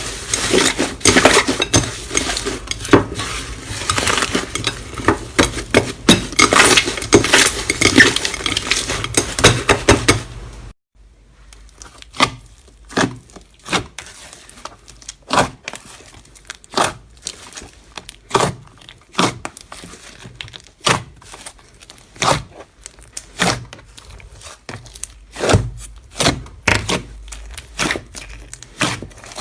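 Slime being squished and pressed, with dense crackling and clicking pops. About eleven seconds in it cuts to a sparser run of separate sticky pops and clicks, one or two a second.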